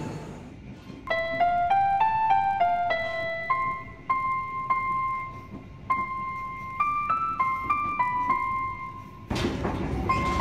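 Background music: a slow melody of single piano-like notes. Near the end the running noise of the train comes back in under the music.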